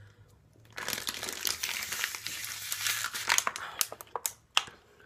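Thin disposable plastic water bottle crinkling and crumpling as it collapses while the water is sucked out in one go: about two seconds of dense crackling, then a few separate sharp crackles.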